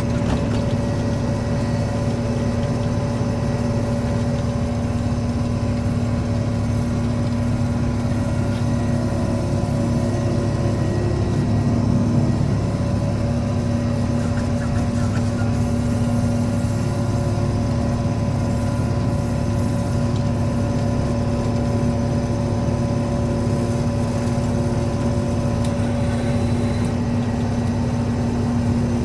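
John Deere 5830 self-propelled forage harvester running steadily, heard from inside its cab: an even low drone with a steady hum on top.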